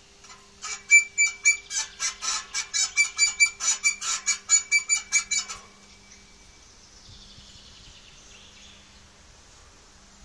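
Geely CK-2 exhaust system squeaking in a quick, even rhythm, about four high-pitched squeaks a second for some five seconds, then stopping. A faint steady hum continues underneath.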